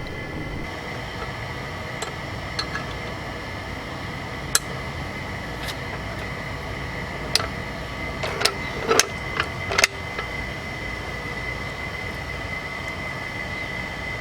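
Scattered metal clicks and knocks of a 10 mm hex key being fitted and worked on the bolt that holds a hydraulic floor jack's saddle, with a cluster of sharper knocks past the middle. Under them runs a steady hum with a thin high whine.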